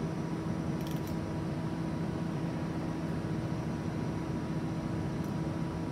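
Steady machine hum with a constant low drone and a fainter higher tone, plus two faint ticks about a second in.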